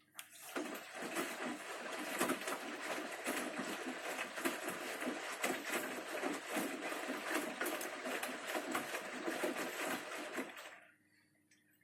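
Bosch Series 6 front-loading washing machine in its main wash, the drum turning and the wet clothes and water inside sloshing unevenly. It stops abruptly near the end, as the drum pauses between turns.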